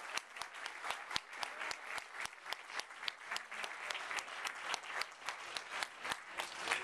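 A small crowd applauding, with sharp, distinct claps from a pair of hands clapping close by.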